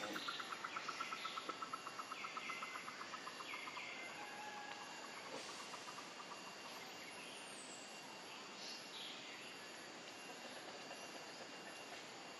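Insects and birds calling outdoors. A rapid pulsing call at about five to six pulses a second fades out over the first four seconds. It sits over a steady, thin, high insect whine, with a few short chirps scattered through.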